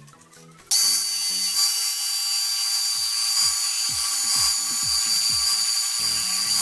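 A high-speed power tool runs with a steady high whine and a harsh hiss. It starts suddenly about a second in and cuts off near the end, over background music.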